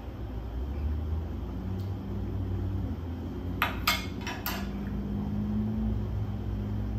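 A metal fork clinking against a metal serving tray as it is set down: four quick clinks a little past halfway.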